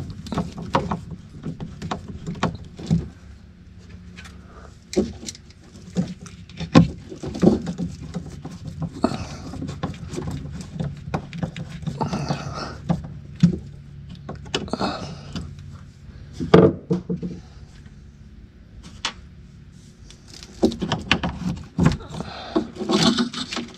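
Hands-on work on a dashboard part: irregular clicks, knocks and rattles of a new AC modulator being screwed in and plugged in, over a faint steady hum.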